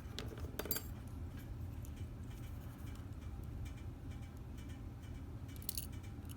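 Small metallic clicks from the pin-tumbler parts of a Schlage Everest lock being handled as it is taken apart: one just under a second in, another near the end, over a steady low hum.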